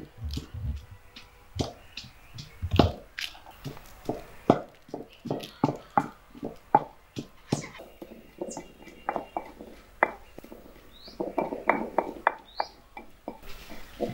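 Chickens clucking in short, irregular calls that come thicker near the end, with a couple of brief high chirps.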